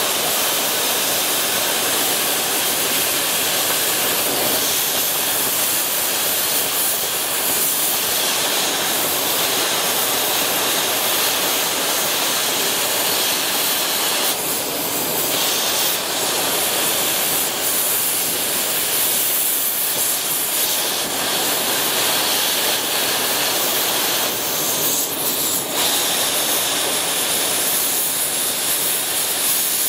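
Oxy-acetylene cutting torch with a washing tip, run at about 50 psi oxygen, blowing a steady, loud rushing hiss as its cutting-oxygen jet washes molten steel and slag off the plate. The hiss shifts briefly twice, about halfway through and again near the end.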